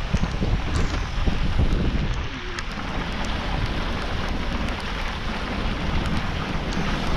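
Wind buffeting the microphone over a steady hiss of rain, with a few faint ticks of raindrops, from a vehicle driving through a hurricane rainstorm.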